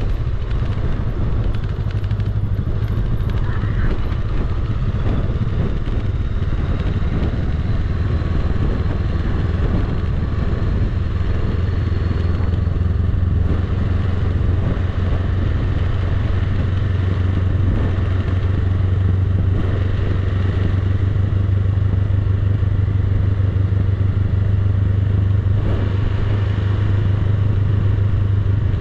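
Honda Rebel 500's parallel-twin engine running steadily as the motorcycle rolls slowly downhill.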